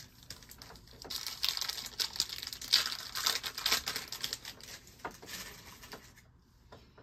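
Wrapper of a trading-card pack being torn open and crinkled by hand: a dense run of crackling from about a second in that fades away near the end.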